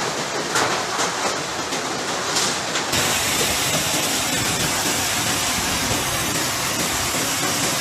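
Fast floodwater rushing through a street and pushing cars along, a loud continuous rushing noise that surges unevenly at first. About three seconds in it changes abruptly to a steadier, brighter rush of water.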